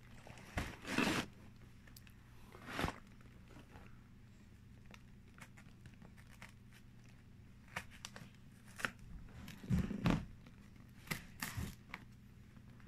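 A cardboard LEGO box being handled and turned over on carpet: scattered short rustles and scrapes of the cardboard, a few near the start and a denser run between about 8 and 12 seconds in.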